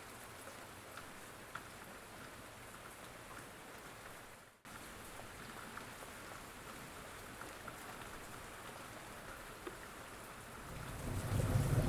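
Steady rain falling, with scattered ticks of single drops. The sound dips out briefly about a third of the way in. Near the end a low rumble of thunder starts to build.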